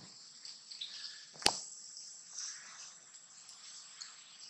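Steady high-pitched insect drone, with one sharp click about a second and a half in and a few faint scattered ticks.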